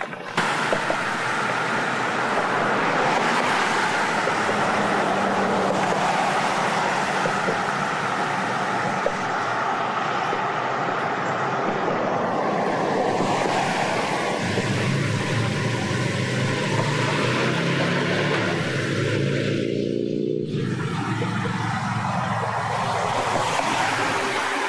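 Steady road-traffic noise, with a car's engine swelling and passing close in the second half.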